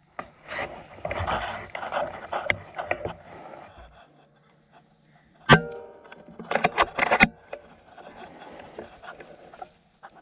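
A PCP air rifle fires once about halfway through, a single sharp crack. About a second later comes a quick flurry of sharp sounds as the hit grey partridge flaps on the ground.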